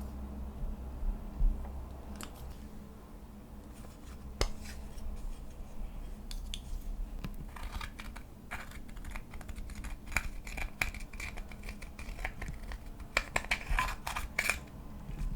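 Slime being pressed and mixed by hand, giving sharp sticky clicks and crackles. They are sparse at first and come thick and fast in the second half.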